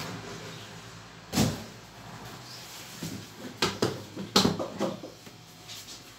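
Hard plastic carry case being handled and opened: a single knock about a second and a half in, then a quick run of sharp plastic clacks as the front latches snap open and the lid is lifted.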